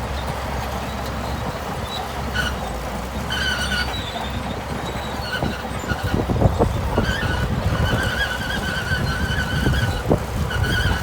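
Shantui crawler bulldozer's diesel engine running, with repeated short high squeals from its steel tracks. From about halfway through, the clanks of the track links come thick and fast.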